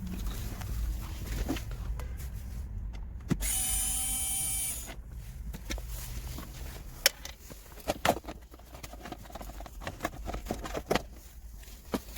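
A small electric motor whirring steadily for about a second and a half, followed by scattered clicks and knocks.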